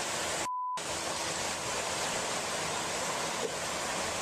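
Fast-flowing river water rushing as a steady noise. About half a second in, it cuts out briefly, leaving only a short high beep.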